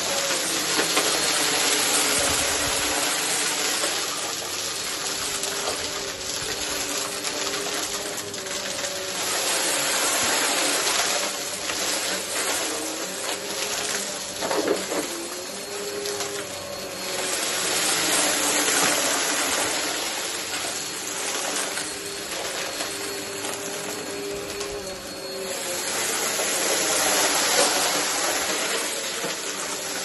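Vacmaster bagless upright vacuum cleaner running over carpet and sucking up scattered confetti and glitter: a steady motor hum under rushing airflow that swells and fades as it is pushed back and forth.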